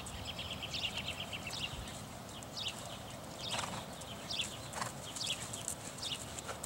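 A horse trotting under a rider on sand arena footing: a run of soft hoofbeats, with a couple of sharper knocks about halfway through.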